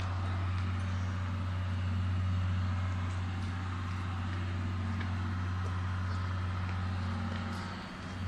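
Chichibu Railway Deki electric locomotives standing at the platform with a steady, deep electrical hum.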